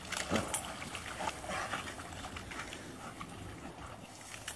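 A dog splashing through shallow pond water as it wades out onto the bank, with irregular splashes and sloshes.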